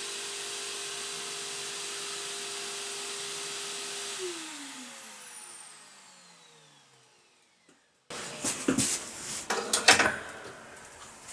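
The router spindle of a homemade CNC mill and a dust-extraction vacuum run steadily with a whine, then are switched off about four seconds in and wind down, their pitch falling until they fall silent. After an abrupt break, knocks and clatter of handling follow near the end.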